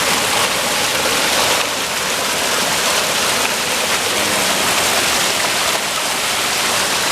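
Spring water rushing steadily, a loud even rush like a small waterfall or fast stream.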